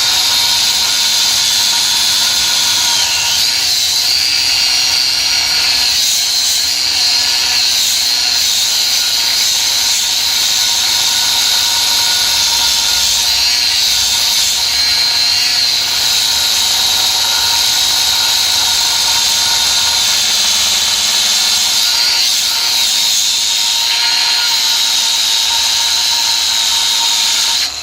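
Cordless angle grinder cutting into a steel rail: a loud, steady high-pitched whine with a grinding hiss, the motor's pitch sagging briefly several times as the disc bites under load. It stops suddenly near the end.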